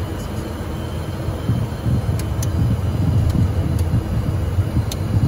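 Cockpit noise of a small airplane rolling on the runway: a steady low rumble of engines and wheels that grows a little louder about two seconds in, with a few light clicks.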